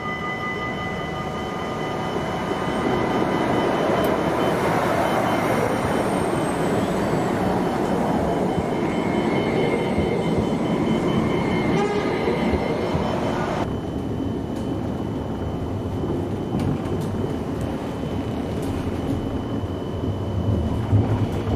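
CAF Urbos 100 light-rail tram pulling into a stop and running close past: the rumble and rolling noise of the tram build over the first few seconds and hold. About 14 seconds in, the sound changes abruptly to a lower, duller rumble.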